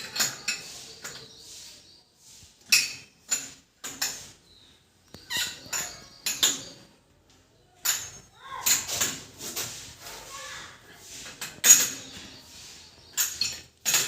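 Irregular metallic clinks and scrapes of plumbing fittings and tools being handled while a wall mixer tap is fitted, in uneven clusters with a few sharper knocks.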